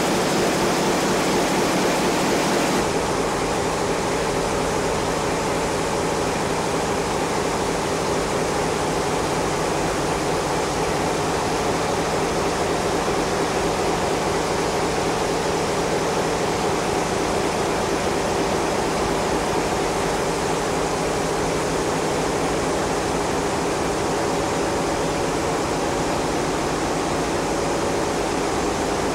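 Ship's engine room at sea: the main diesel engines and auxiliary machinery running, a loud, steady mechanical din with a constant hum running through it. The highest hiss drops a little about three seconds in.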